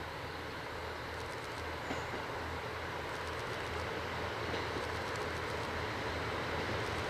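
Diesel train approaching on the line, its engine hum and wheel noise growing slowly louder, with faint clicks over the rails.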